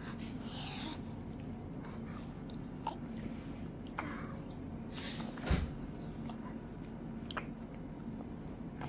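A baby gumming and mouthing food, with small wet smacks and clicks, and a single dull thump about halfway through, over a faint steady hum.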